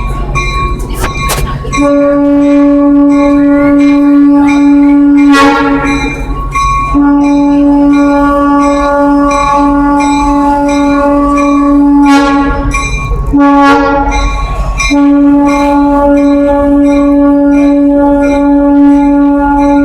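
Train horn sounding the grade-crossing signal: two long blasts, a short one, and a long one held on, all at one steady pitch. The low rumble of the rolling train shows in the gaps.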